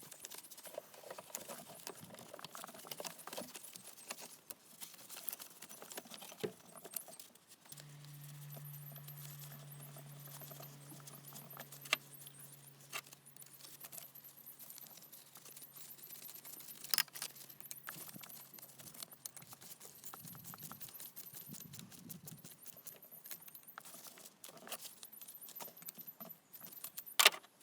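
Small metal tools and parts clinking and clicking during hands-on work on the fuel hoses, with a few sharper clicks. A low steady hum sounds for several seconds in the middle.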